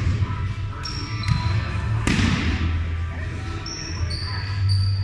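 Indoor volleyball play in a gymnasium: one sharp smack of the ball about two seconds in, echoing off the hall, with short high squeaks of sneakers on the hardwood floor in the second half. A low steady hum runs underneath.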